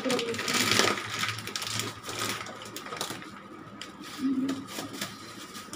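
Crinkling and rustling of a plastic snack packet as it is handled and stuffed into a thin plastic carry bag, loudest in the first second and again about two to three seconds in.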